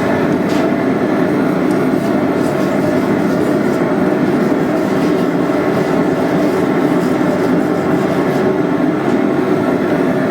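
Blacksmith's forge running with a steady, even roar.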